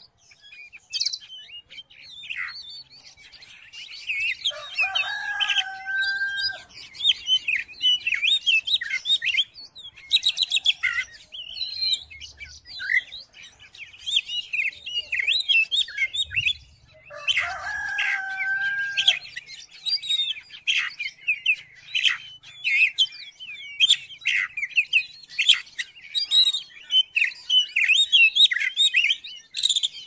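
Oriental magpie-robin (kacer) singing a long, varied, rapid song of whistles, trills and chattering phrases with hardly a break. Twice, about 5 and 17 seconds in, a longer, lower drawn-out call stands out.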